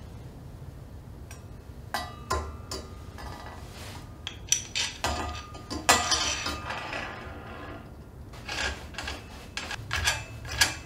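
Metal clinks and scrapes from a steel head tube reamer-facer tool. Its shaft and cutter knock against a bicycle head tube as they are fitted, and its lower cone and spring are threaded onto the shaft by hand. The sounds come as scattered sharp taps, some ringing briefly, with a denser run of scraping about six seconds in.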